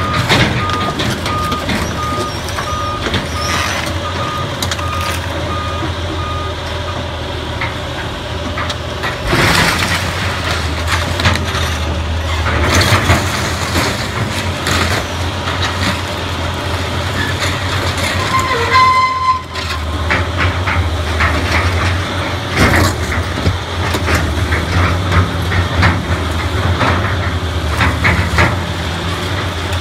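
CAT hydraulic excavator's diesel engine running while its bucket tears apart a building, with repeated crashes and scraping of sheet-metal roofing, wood and debris, the biggest crash about nine and a half seconds in. A backup alarm beeps at an even pace for the first six seconds or so.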